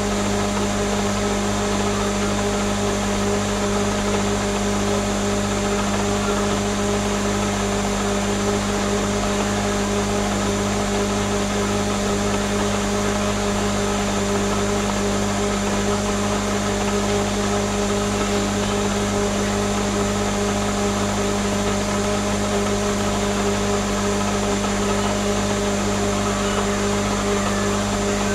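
Electric countertop blender running at one steady speed, its motor humming without a break as it blends a thick mixture.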